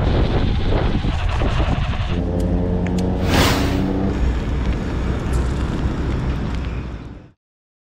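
Wind buffeting the microphone, joined about two seconds in by a steady engine hum; the sound cuts off suddenly near the end.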